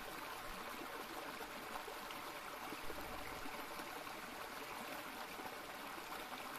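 Shallow stream running steadily over rocks and small rapids.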